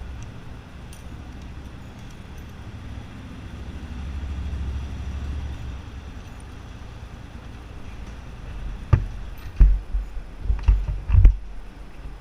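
Yamaha XTZ 250 Ténéré single-cylinder engine running through a Roncar 2Way aftermarket exhaust: a steady low idle that swells briefly, then a run of short, sharp throttle blips about half a second apart near the end.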